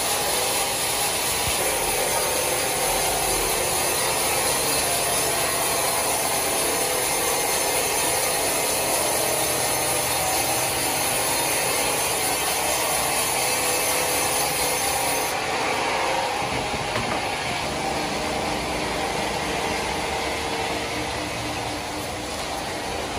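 Large horizontal band sawmill cutting lengthwise through a big log: the blade makes a steady rasping hiss in the wood over the running saw drive.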